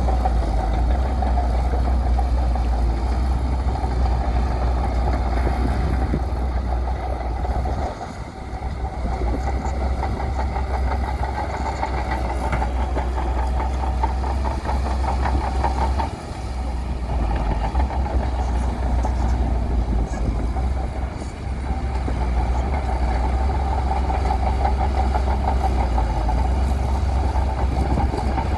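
Bulldozer's diesel engine running steadily with a heavy low rumble, dipping briefly twice, about eight and sixteen seconds in.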